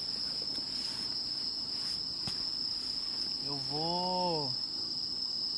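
Crickets trilling in one steady, unbroken high-pitched drone, with a faint tick a little past two seconds in.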